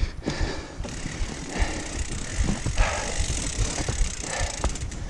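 Mountain bike rolling down a wet dirt forest trail: tyre noise on dirt and roots, with frequent short knocks and rattles from the bike over bumps.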